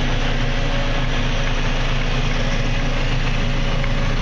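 Cat D6K2 dozer's diesel engine idling steadily, heard from inside the cab.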